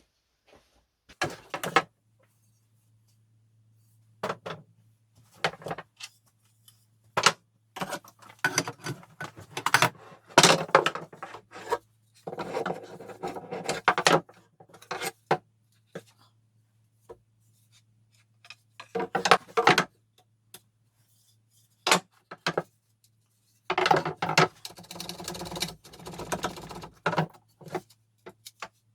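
Workshop hand work on wooden furniture: irregular knocks, clicks and short rattles of wood and small metal parts being handled. There are two longer stretches of rubbing or scraping, about twelve and twenty-four seconds in.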